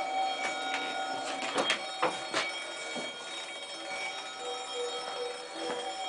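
Burner of a refrigerator-built raku kiln running with a steady hiss and whistling tones. A cluster of metal knocks and clatter comes about two seconds in as the red-hot kiln's lid is opened.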